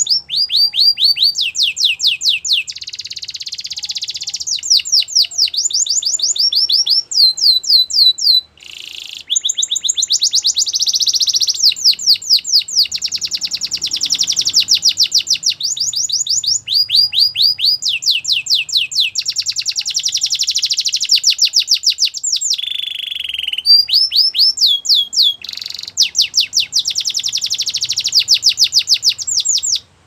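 Yellow canary singing a long, loud song of rapid trills: runs of quick, falling notes, many to the second, changing to a new trill every second or two with only brief breaks.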